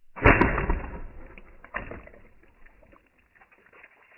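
A high-power PCP air pistol's pellet smacks into a full plastic water bottle with a sudden loud crack about a quarter second in. A second knock follows about a second and a half later as the bottle falls onto the table, then fading crackle and sloshing as it settles.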